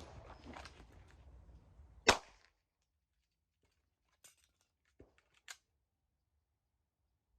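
A single pistol shot, a sharp crack about two seconds in, after some rustling. Three faint clicks follow a couple of seconds later.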